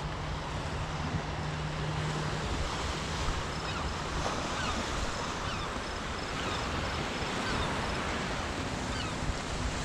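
Small waves washing onto a rocky shore: a steady surf hiss with a few faint high chirps over it.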